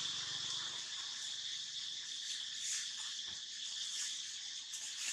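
Steady, high-pitched chorus of forest insects, an unbroken shrill buzz.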